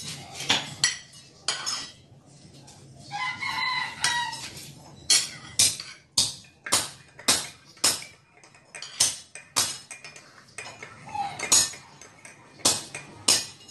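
Spoons and forks clinking and scraping against ceramic plates as people eat, many short sharp clicks at irregular intervals. A drawn-out pitched call sounds in the background about three seconds in.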